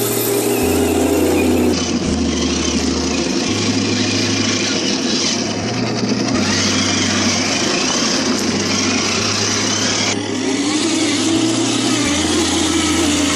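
1/10-scale RC crawler trucks driving through a shallow muddy stream: electric motor and gear whine rising and falling with the throttle, with water splashing. Under it a low bass line steps between notes every second or two.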